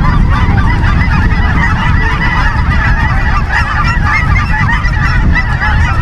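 Large flock of geese honking continuously, many calls overlapping into a steady din over a low rumble.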